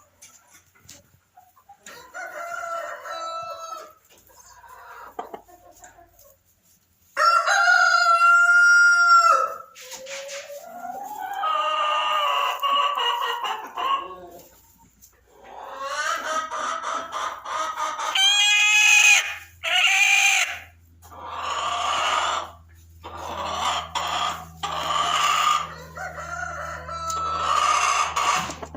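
Barred Rock hen calling: a run of drawn-out, pitched calls and clucks that come and go every second or two, loudest about seven seconds in.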